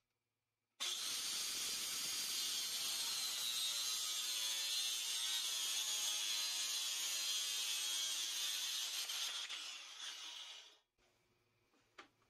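Angle grinder with a toothed wood-cutting disc, running in a sliding guide jig and cutting through a plywood board. The harsh cutting noise starts suddenly about a second in, holds steady, tails off over the last couple of seconds and stops about eleven seconds in. A single light knock comes near the end.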